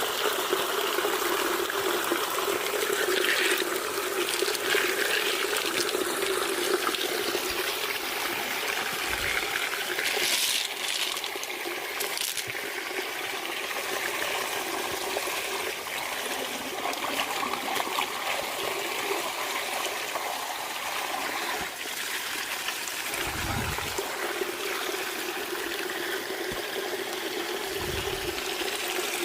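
Water running and trickling steadily, with a few dull thumps.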